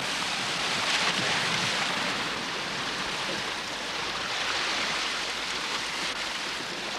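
Sea waves and wind at sea, a steady rushing noise that swells slightly about a second in and again around the middle.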